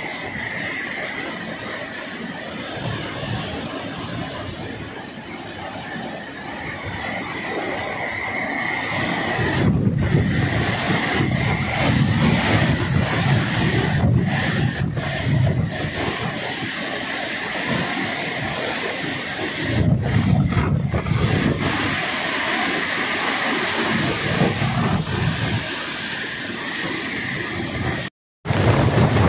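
Typhoon-force wind rushing and gusting with a deep rumble, swelling into stronger gusts about ten seconds in and again about twenty seconds in. The sound cuts out for a moment near the end.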